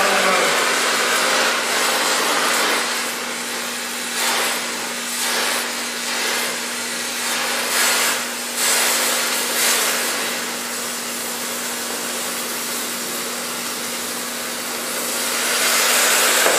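DHC2000 oxy-acetylene cutting torch hissing steadily as it preheats and cuts steel plate, with the cutting oxygen at 15 psi and acetylene at 4 psi. Irregular louder surges of hiss and crackle come between about four and ten seconds in, and the hiss swells again near the end.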